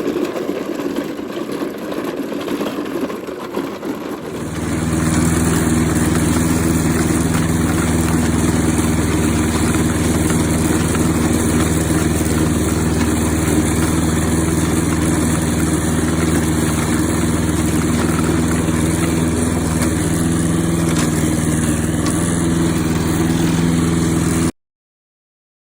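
Toro Recycler walk-behind lawn mower engine starting up about four seconds in and then running steadily at full throttle, after a few seconds of quieter engine-like sound. The sound cuts off suddenly near the end.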